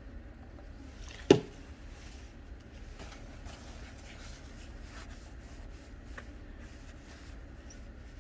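Paper shop towel rubbing and rustling faintly against a metal copier roller shaft as the shaft is wiped clean with alcohol, with one sharp click about a second in.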